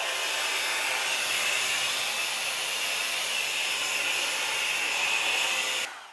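Revlon Plus blow dryer running steadily on its highest setting, an even rush of blowing air. It switches off suddenly near the end.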